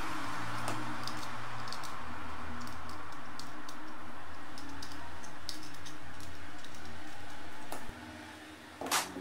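Homemade CNC pen plotter built from old printer parts, running: its drive motors hum at steady pitches that shift every second or so as the axes move, with scattered light clicks. It stops abruptly about eight seconds in.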